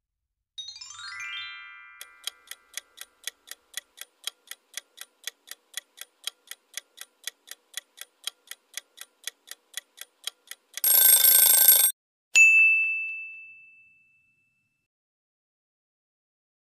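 Quiz-game countdown sound effects. A short rising chime, then a timer ticking about four times a second for some eight seconds, then a loud alarm ring for about a second as time runs out, then a single bell ding that fades away.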